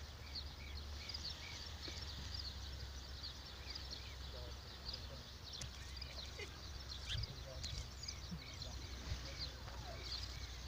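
Birds chirping faintly, one repeating a short arched note a couple of times a second in the first few seconds and again near the end, with quicker high chirps scattered throughout, over a low steady rumble.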